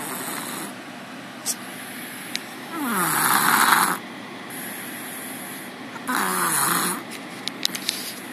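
Snoring in a slow rhythm, one snore about every three seconds, each lasting about a second; the second and third are the loudest. A few faint clicks fall between the snores.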